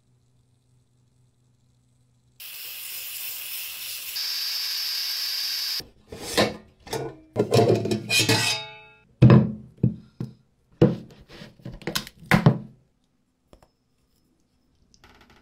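A steady hiss for about three seconds, then a run of sharp knocks and clinks of a plastic strainer against a stainless steel pot.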